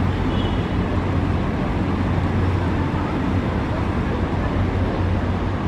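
Boat engine running steadily, a low even hum, with water and wind noise from the moving boat.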